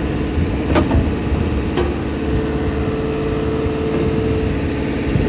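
A JCB 3CX backhoe's four-cylinder diesel engine running steadily. Two sharp knocks come about a second apart near the start, and a steady whine holds over the engine for a couple of seconds in the middle.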